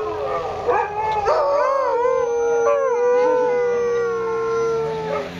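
Several sighthounds howling together in long, wavering howls, one voice held on a steady pitch while others waver above it; the howling fades near the end.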